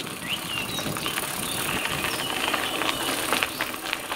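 Birds chirping over a steady rushing noise with scattered light rattles and clicks.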